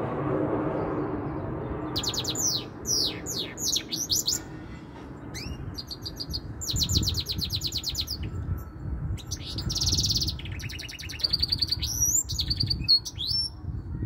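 Goldfinch mule, a goldfinch × canary hybrid, singing a long, varied song of fast trills, rapidly repeated notes and rising sweeps, with a buzzy rattle about ten seconds in. The song starts about two seconds in, over a steady low rumble.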